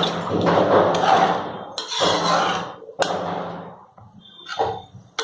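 A cooking utensil working the vegetable bhaji in a metal pan: three long scraping strokes, then a short knock near the end.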